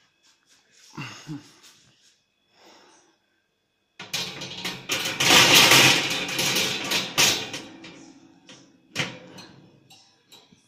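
Chrome wire grill rack of a barbecue smoker rattling and scraping against metal as it is handled. The clatter starts abruptly about four seconds in and lasts about four seconds, and a single sharp click comes about nine seconds in.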